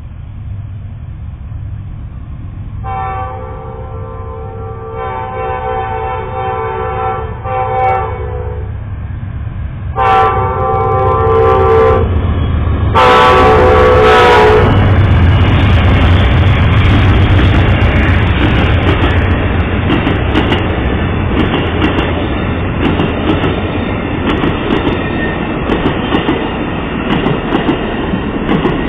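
Amtrak diesel passenger locomotive sounding its horn in a series of long blasts for the grade crossing during the first half, the last and loudest as the engine reaches the crossing. Then the passenger cars run past with a steady loud rumble and wheels clacking over the rail joints.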